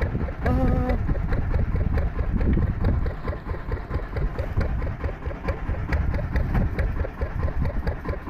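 Small fishing boat's engine running at idle with a steady, rapid knocking beat. About half a second in, a short held pitched call sounds over it.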